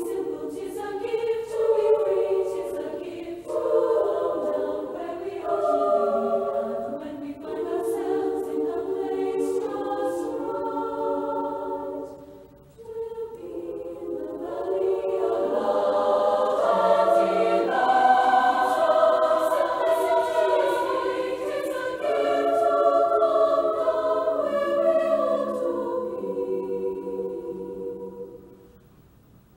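Choir singing a slow sacred piece in two long phrases, with a short breath between them about twelve seconds in. The final chord dies away near the end.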